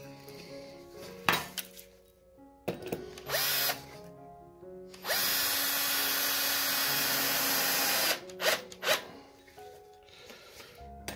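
Cordless drill driving a screw into a pine board: a short burst about three seconds in, then a steady run of about three seconds. A few sharp knocks come before and after.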